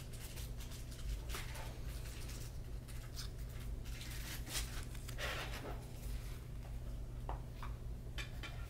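Stiff printed game cards handled by hand: soft rustles and light clicks as the cards slide and are fanned against each other, over a steady low hum.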